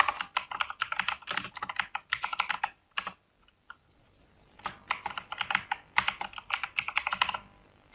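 Computer keyboard typing in quick runs of keystrokes: a burst lasting nearly three seconds, a pause of about two seconds with a stray click or two, then a second burst of nearly three seconds.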